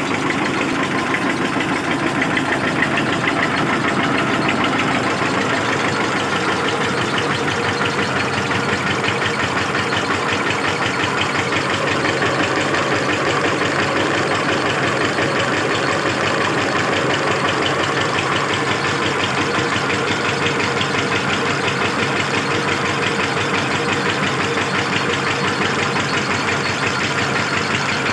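Engine-driven screw oil expeller pressing mustard seed: the drive engine runs steadily under load with a fast, even pulsing, and the press grinds without a break or change in speed.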